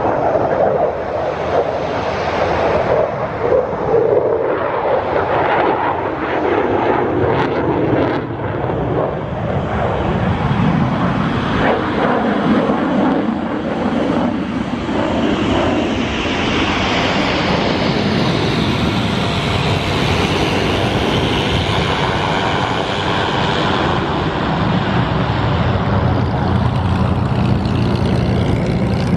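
F-16 Fighting Falcon's jet engine in a flying display: continuous loud jet noise with the afterburner lit, a higher hiss building in the second half.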